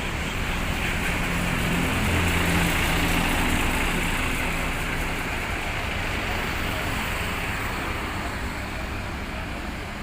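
Road traffic with a vehicle engine running nearby, its low hum swelling louder about two seconds in.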